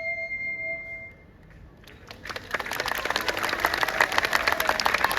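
A Japanese bamboo flute (fue) holds a final steady note that stops about a second in; about two seconds in, the audience breaks into applause.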